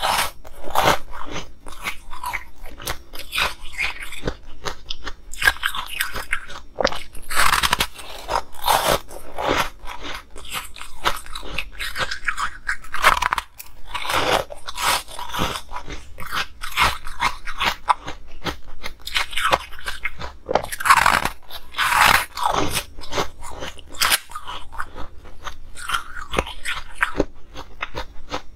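Close-miked biting and chewing of hard colored ice: dense, irregular crunching and crackling that keeps up throughout, with louder clusters of crunches at several points.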